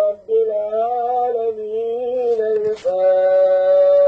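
Men's voices chanting a melodic Islamic religious chant in long held, slowly gliding notes. A short click comes near the middle.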